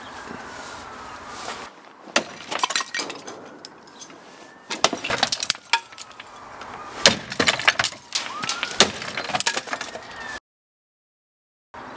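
Metal baseball bat smashing ornaments on top of a wooden bureau: a run of sharp blows with breaking and clattering debris, loudest in the second half, then the sound cuts to silence shortly before the end.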